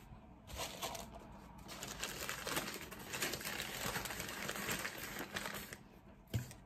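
White chip-shop wrapping paper crinkling and rustling as it is handled and unfolded by hand, a dense crackle that stops shortly before the end.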